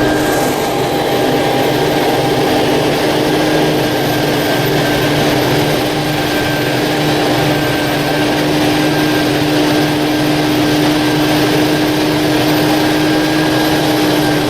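Vehicle engine running steadily at a constant pitch, held waiting rather than driving, with a steady whine over a low hum.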